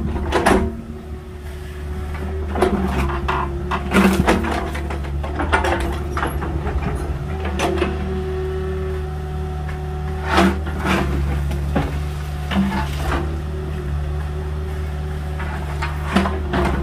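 Agricultural mini excavator's diesel engine running steadily under load, with repeated sharp knocks and cracks from the bucket working material.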